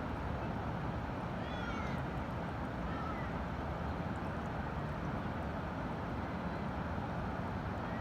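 Outdoor nature ambience: a steady low rushing noise, with a few faint, short high calls rising and falling above it, once near the start, once about three seconds in, and once at the end.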